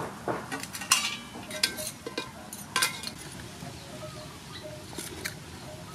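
Steel tongs and a fork clinking and knocking against an aluminium cooking pot and the sea-snail shells as the boiled snails are lifted out. There is a quick run of clinks in the first three seconds, the loudest about a second in, then a single clink near the five-second mark.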